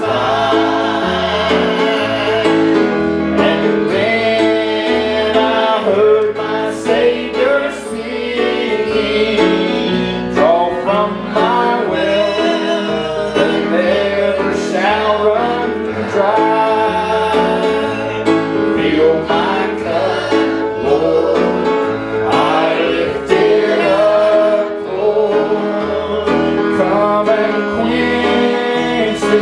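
A man singing a gospel hymn while accompanying himself on a grand piano.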